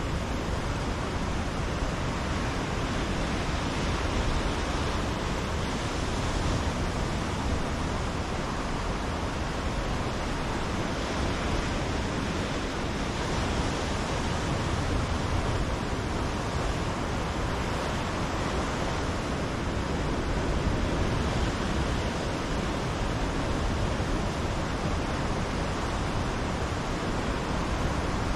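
Ocean surf breaking and washing against a rocky shoreline: a steady rush with a low rumble, swelling a little now and then as waves come in.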